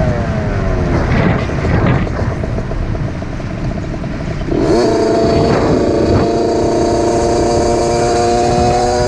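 Suzuki RM60 two-stroke mini dirt bike engine: its revs fall off over the first second, it runs rougher and quieter for a few seconds, then picks up about four and a half seconds in and holds a steady high-pitched rev.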